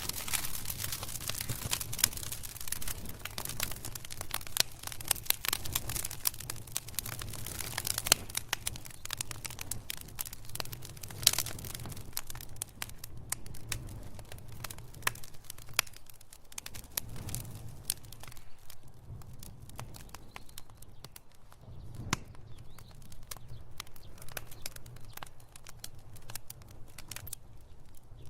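Wood fire crackling and popping: many sharp, irregular snaps over a soft hiss and low rumble, densest in the first half and sparser toward the end.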